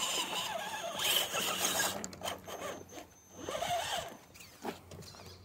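Electric motor and geared drivetrain of a 1/10-scale Axial SCX10.2 rock crawler whirring as it is throttled over rock, the pitch rising and falling with the throttle. There is a long burst over the first two seconds and a shorter one about three and a half seconds in.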